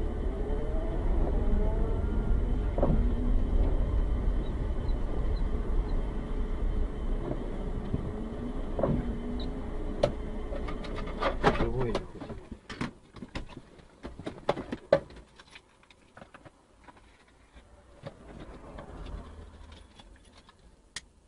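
Car cabin rumble from engine and tyres on a wet road. About twelve seconds in the rumble drops away and a scatter of clicks and knocks follows at a much lower level.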